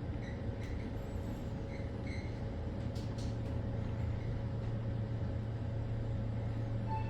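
Cabin noise inside a Hyundai WBHS-GX gearless high-speed elevator car in travel: a steady low hum with a rushing noise over it. A steady higher tone comes in right at the end.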